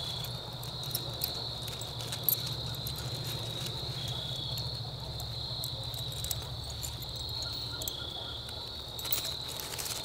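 A steady, high-pitched chorus of insects chirping outdoors over a low, even rumble. A few light metal clicks come near the start as the trap is hooked to its stake.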